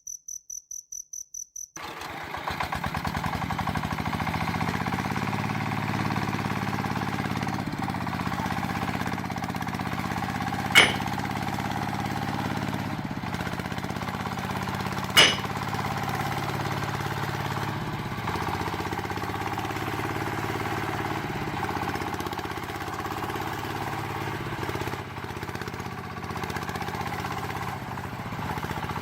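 A cricket chirping in a rapid pulsed trill, then about two seconds in an engine starts and runs steadily, with two sharp clicks partway through.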